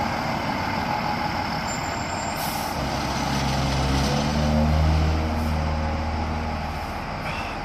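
Fire truck engine running under a steady background noise, with a short hiss about two and a half seconds in; the low engine sound then swells to a peak around five seconds and eases off.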